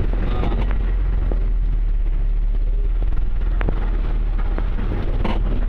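Steady low engine and road rumble heard from inside a moving vehicle's cab as it drives over a potholed, muddy road, with a couple of sharp knocks from the cab.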